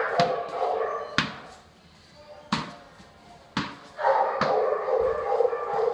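Dogs in boarding kennels barking: sharp single barks about once a second that ring down a hard-walled hallway, with a busier stretch of barking near the start and again near the end.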